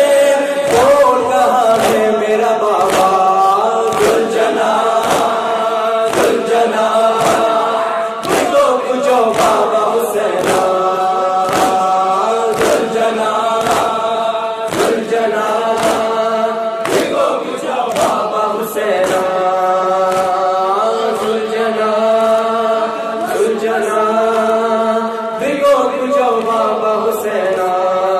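Men chanting a noha in Urdu into microphones, a group singing the lines together, over the steady rhythmic slaps of matam chest-beating, just under two strikes a second.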